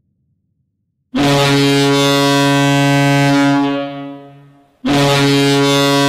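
University of New Hampshire Wildcats hockey goal horn, heard dry without added reverb, sounding two long blasts of one steady low pitch: the first starts about a second in, holds for about two and a half seconds and fades, and the second starts near the end.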